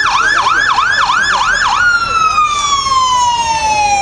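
Electronic siren on a fire department vehicle. It starts with a fast yelp of about six quick whoops, then about two seconds in switches to a slow wail that falls steadily in pitch.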